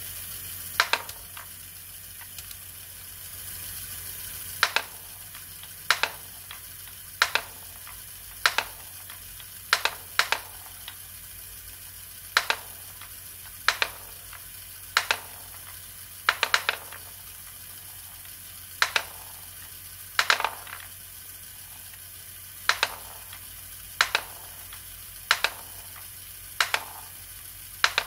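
Lego Great Ball Contraption pump module running: the small electric motor and gear train whirr steadily while balls are pushed up the column one at a time. Each ball drops from the top chute into a wooden tray with a sharp clack about every second, now and then two in quick succession.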